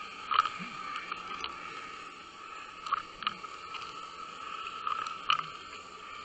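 Muffled underwater-camera recording of a high-low bucktail rig being fished over sand: a steady hum and hiss with about five sharp clicks and knocks, the loudest about half a second in.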